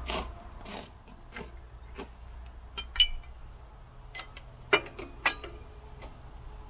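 Steel drawbar with a ball mount being handled against a compact tractor's three-point hitch: scattered metal clinks and knocks, with a sharper clank about three seconds in and two more near the five-second mark, over a faint steady low hum.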